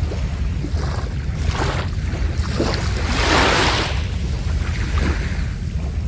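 Sea waves washing onto the shore in a swelling and fading hiss, with the biggest wash about three seconds in, over a steady low rumble.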